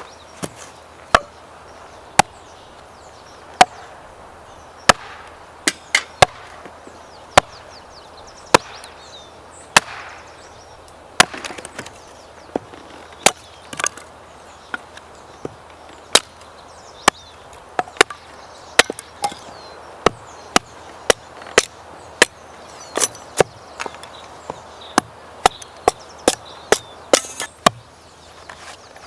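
Chopping: a run of sharp, irregular knocks, about one a second at first and quickening to about two a second in the second half.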